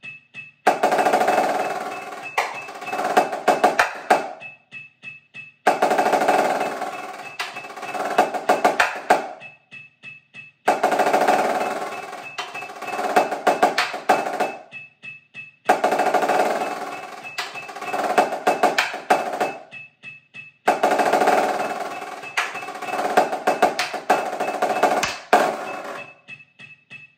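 Marching snare drum played with wooden sticks: five phrases of fast, dense strokes about four seconds each, every one followed by a pause of about a second.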